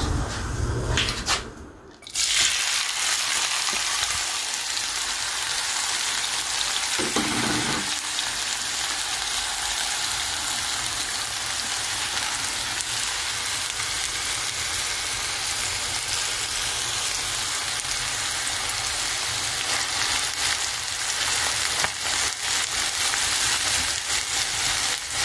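Thinly sliced onions frying in hot oil in a wok: a steady, dense sizzle that starts about two seconds in, with a metal spatula stirring and scraping near the end.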